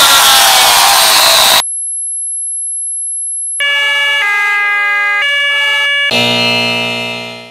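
A run of synthetic sound effects one after another. First a harsh, hissing noise that wavers in pitch. About a second and a half in comes a single very high steady tone lasting two seconds, then a series of electronic tones stepping between pitches like an alarm, and near the end a dense buzzing chord that fades out.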